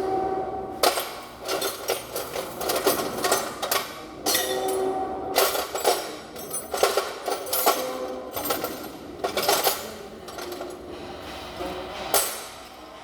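Hand tools clicking and knocking against metal engine parts in irregular clusters of rapid strikes, with a few brief ringing tones between them.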